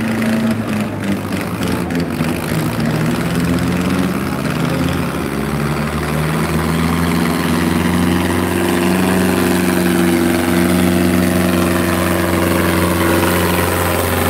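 Diesel tractor engine running loud and steady under heavy load, dragging another tractor; its pitch rises a little about halfway through and then holds, the black exhaust smoke showing it at full power.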